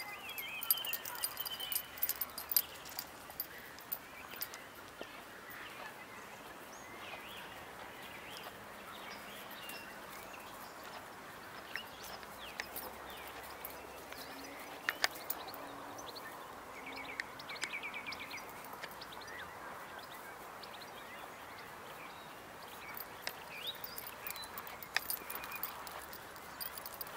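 Birds chirping now and then, with a short rapid trill about two-thirds of the way in. Underneath are light rustling and small ticks of footsteps in grass and dry leaves.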